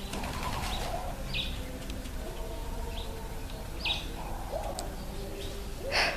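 Birds calling: short high chirps every two to three seconds over softer, lower coo-like calls, with one louder, sharper sound shortly before the end.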